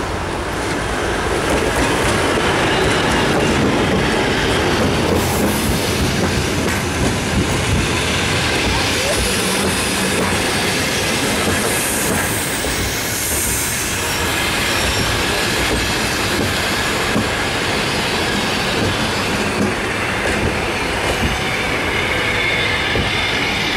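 A TEM18D diesel locomotive passes close by, followed by its passenger coaches rolling past with a steady rumble and wheel clatter. About halfway through there is a high squeal from the wheels or brakes as the train slows to arrive at the stop.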